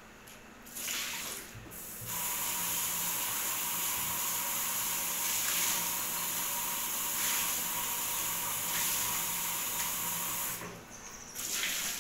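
Water running from a tap into a sink: a short burst, then a steady flow for about nine seconds that stops fairly sharply, and another short burst near the end.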